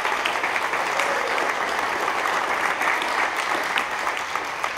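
Applause from a crowd, many hands clapping steadily.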